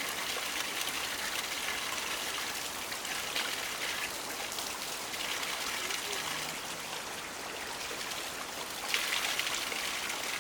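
Steady rush of running water, a continuous hiss that grows a little louder and brighter about nine seconds in.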